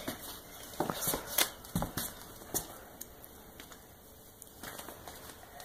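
A few light knocks and scuffs from a child's boots stepping on a laminate wood floor, most of them in the first three seconds.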